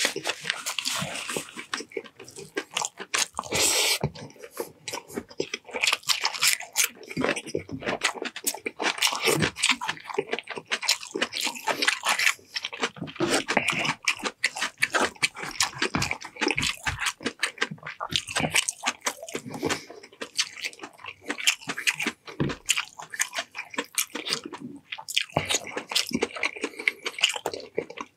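Close-miked mukbang eating: a person chewing and biting with wet mouth sounds and smacks, in a continuous run of short, sharp, close-up chews.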